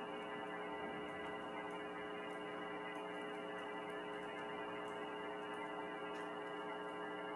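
A steady, unchanging hum made of many sustained tones, with no rhythm and no events.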